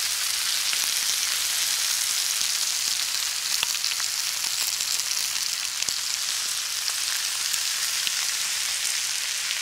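Steaks and onions frying in a cast iron skillet over a campfire: a steady sizzle with scattered small pops.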